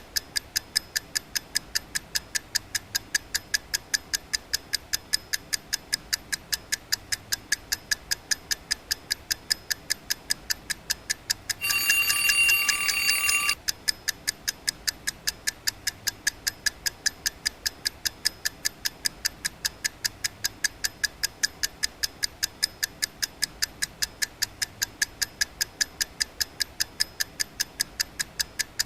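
An alarm clock ticking fast and evenly. About twelve seconds in, its alarm goes off for just under two seconds as a loud, shrill ringing tone, then cuts off and the ticking carries on.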